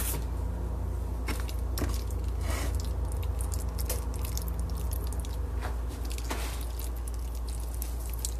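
A spoon stirring thick broccoli macaroni and cheese in a pan: soft squishing with occasional short scrapes, over a steady low hum.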